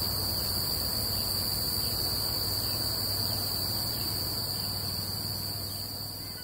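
A steady, high-pitched chorus of field insects, unbroken and easing off slightly near the end.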